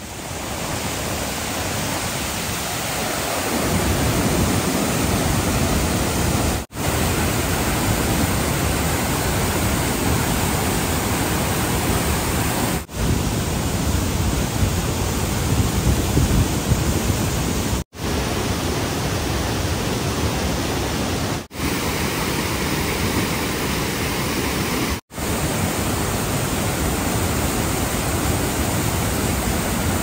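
Giessbach Falls' cascading water making a loud, steady rush, growing louder over the first few seconds and broken by five brief gaps.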